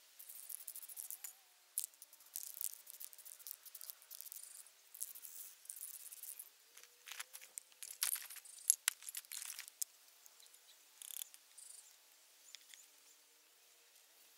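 Aerosol spray paint hissing in many short, irregular bursts, which lay fine speckles of paint over the sleeves; the bursts thin out and stop near the end.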